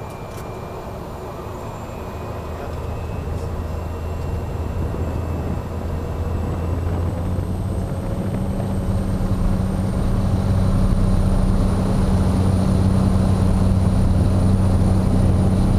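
Cessna Caravan amphibian's Pratt & Whitney PT6A turboprop heard from inside the cockpit, growing steadily louder as power comes up for takeoff. A low propeller drone strengthens from about halfway through, over a high turbine whine that slowly rises in pitch.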